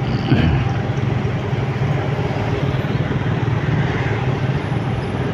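Steady traffic noise while riding a motorcycle slowly through congested city traffic: the bike's engine and the surrounding cars and buses run at low speed. A brief louder sound comes about a third of a second in.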